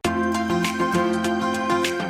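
Background music with steady held tones and regular light percussive strikes, starting abruptly.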